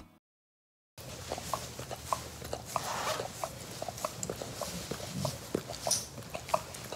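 A dog licking a man's face and beard: an irregular run of short wet licking smacks, starting about a second in.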